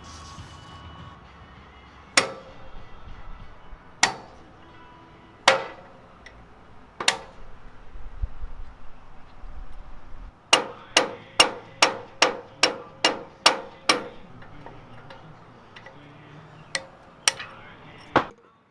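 Hammer striking a stuck steel pin to drive it out of a Ferris wheel joint, sharp metal blows. First single strikes about every second and a half, then a fast run of about ten blows, then three more near the end.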